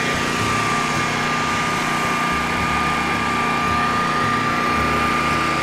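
Riding lawn mower engine running steadily, a low hum with a constant high whine over it.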